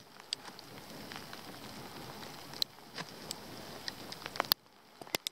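Faint scattered crackles and small snaps of birch bark being picked at and handled by hand on the trunk, with a few sharper clicks near the end.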